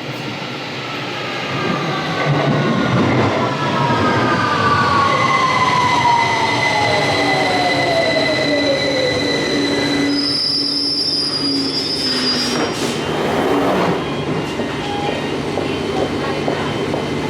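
Victoria line 2009 stock Tube train running and slowing. Its electric traction whine falls steadily in pitch over several seconds over a rumble of wheels on rail. Steady high-pitched squealing tones come in near the end.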